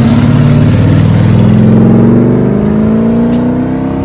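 1989 Audi V8's 3.6-litre V8, through a stainless-steel exhaust, accelerating hard away from the kerb. The loud engine note rises steadily in pitch as it pulls through one gear.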